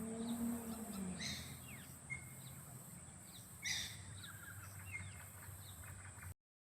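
Several birds chirping and calling in short notes and quick sliding whistles, over a steady high-pitched hiss; the sound cuts off suddenly near the end.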